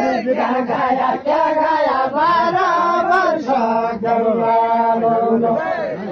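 A large group of voices chanting a song together in a crowd, pitches rising and falling, with one long held note about four seconds in.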